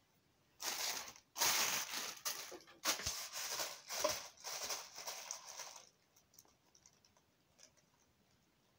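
Thin plastic bag crinkling and rustling in a run of bursts as a cat paws and grabs at it, for about five seconds, then only faint scattered rustles.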